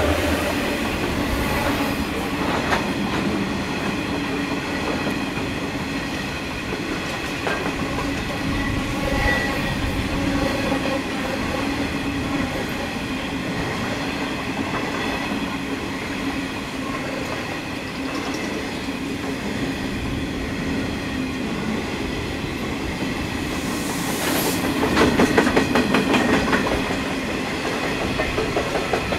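Grain train passing: a diesel locomotive running and wagons rolling on the rails, with a quick run of wheel clicks over rail joints about 25 seconds in.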